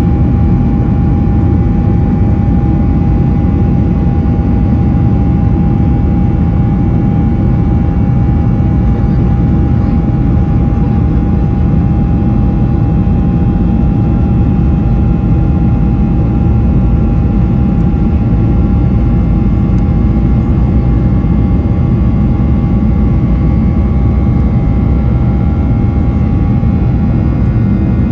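Cabin noise of a Boeing 737-900ER in flight: its CFM56-7B turbofan engines running steadily, a loud, even low rumble with a steady whine on top.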